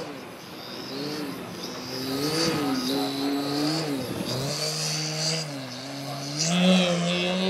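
Dualsky GA6000-8 electric outrunner motor and propeller on a large aerobatic model plane, its pitch rising and falling with throttle as it manoeuvres. The pitch dips lowest about four seconds in, then climbs and holds higher near the end.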